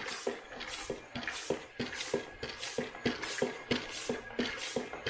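Hand-pump vacuum oil extractor being pumped in a quick, even rhythm of about two strokes a second, each stroke a short hiss of air with a low knock, drawing vacuum to siphon the last of the engine oil out through a tube.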